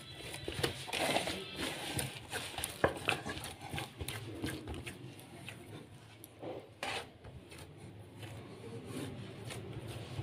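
Hands kneading soft pizza dough in a metal bowl: irregular squelches and slaps, with sharp knocks where the hands hit the bowl, over a low steady hum.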